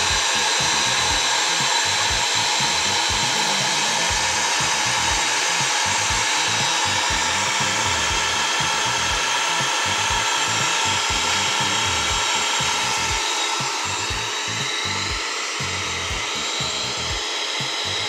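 Key-cutting mechanism inside a Minute Key self-service kiosk running as it duplicates a key: a steady motor whine over a hiss of cutting. It eases a little in level about three-quarters of the way through.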